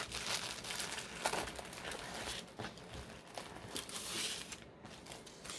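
Clear plastic packaging and a paper-backed diamond painting canvas crinkling and rustling as hands slide the canvas into its plastic sleeve and handle the packet, with a few sharp crackles along the way.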